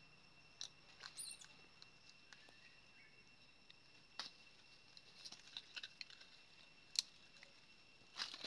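Faint scattered clicks and crackles, the loudest about seven seconds in, over a steady high-pitched insect drone.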